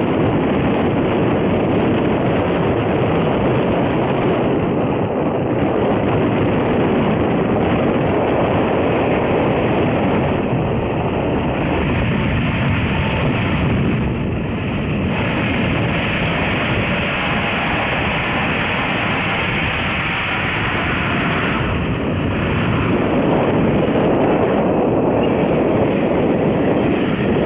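Boeing 777's jet engines rumbling loudly through touchdown and the landing rollout, with wind on the microphone. The noise dips slightly about halfway and builds again near the end.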